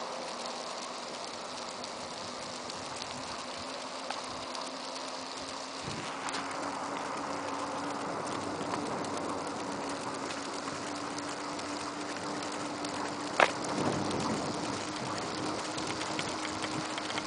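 Steady hiss of wheels rolling over asphalt while the rider is towed along, with a faint steady hum that creeps slightly higher in pitch. One sharp click about thirteen seconds in.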